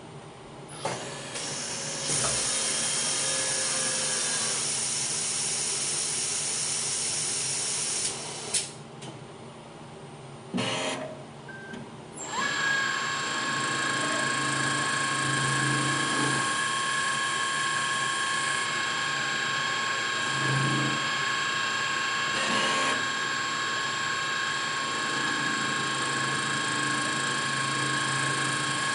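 Newen Contour-BB valve seat machine cutting an intake valve seat with a single-point fixed-turning tool. For several seconds there is a hissing whir. After a brief drop it settles, about twelve seconds in, into a steady high spindle whine with two held tones over a hiss.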